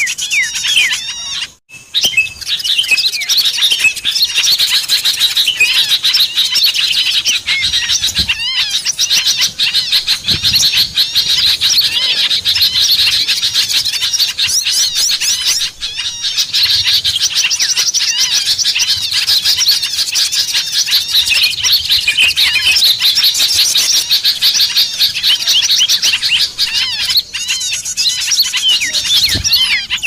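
Dense chorus of many small songbirds, bulbuls and flycatchers, chirping and twittering over one another without pause: a mixed bird-lure recording meant to draw wild birds in. There is a brief break about one and a half seconds in.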